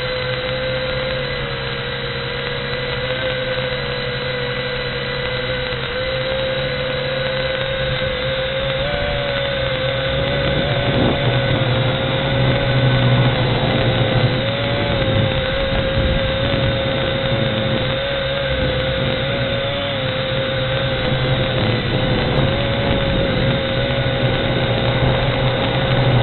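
V686G quadcopter's motors whining steadily in flight, the pitch wavering slightly as the throttle changes.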